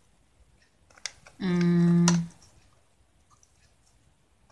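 A few light plastic clicks from a clear eyeshadow palette and scissors being handled. About a second and a half in, a woman's voice holds one steady wordless note for just under a second.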